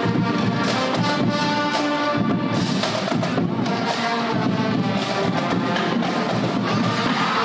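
Upbeat music with drums and percussion, played at a high school pep rally.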